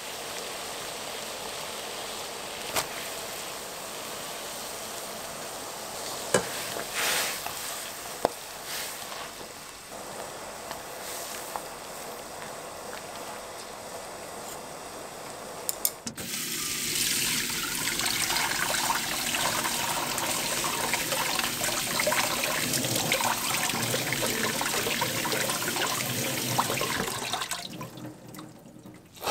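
Water boiling at a rolling boil in a pan, a steady bubbling hiss with a few sharp clinks in the first half. About halfway it cuts to a louder rush of tap water pouring over blanched green onions in a stainless mesh strainer in the sink, the cold-water rinse that stops the cooking; the water stops shortly before the end.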